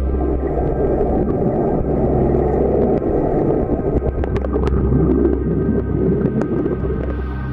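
Muffled rushing and churning of river water heard underwater, with a few sharp clicks and pops of bubbles about four to five seconds in and once more near the end.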